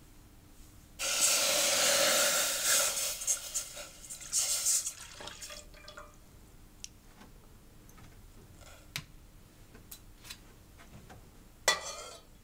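Sugarcane juice poured from a glass into a heated stainless steel pot. The pour starts about a second in, runs loudly for about two seconds, then tapers into a trickle and drips. A short scrape of a metal ladle in the pot comes near the end.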